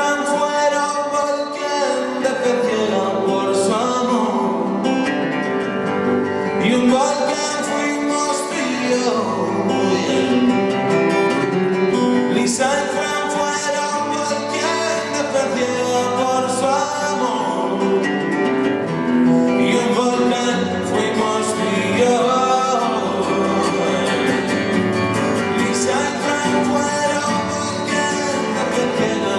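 Live pop-rock band playing, led by acoustic and electric guitars, with a voice singing a wordless or unclear melody over it at times.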